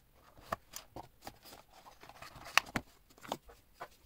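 Cardboard watch box being opened by hand and the watch lifted out: a string of light taps, clicks and rustles, with the sharpest knock about two and a half seconds in.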